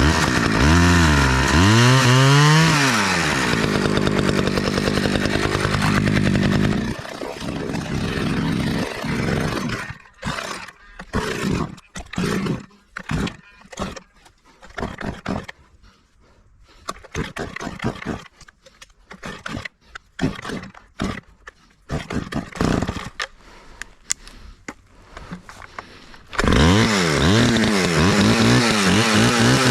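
Small Stihl AV two-stroke chainsaw cutting ash: the engine revs up and down, then runs steadily at high speed for a few seconds before dropping back. For a long stretch only irregular short, quieter noises are heard, until the saw suddenly picks up again near the end, revving up and down.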